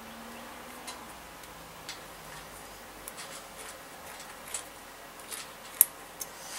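Scattered light metal clicks of a steel split keyring being worked onto the end link of a chainsaw chain, with one sharper click near the end.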